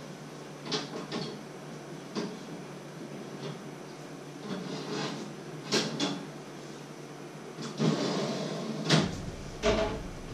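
Metal clinks and knocks of an oven's wire rack as food on it is turned over, a string of separate sharp clicks, then a longer scrape near the end as the rack is slid back into the oven.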